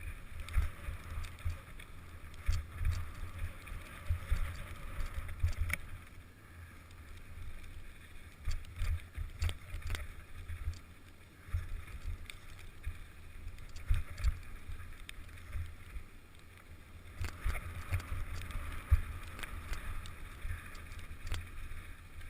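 Mountain bike ridden down a dirt trail: steady wind buffeting on the microphone with tyre hiss, and frequent short knocks and rattles as the bike hits bumps.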